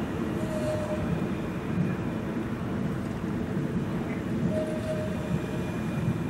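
Alstom Regio Citadis tram running toward and round a curve on grassed track, a steady low rumble mixed with street traffic. A brief higher tone sounds twice, about half a second and four and a half seconds in.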